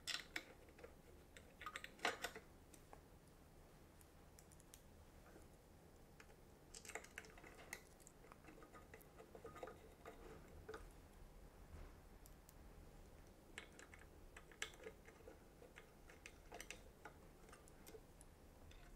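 Faint, irregular clicks and small metal ticks of a 3 mm hex key working the screws that hold the cam in a Shotoku TE-12 camera head, as the screws are driven home.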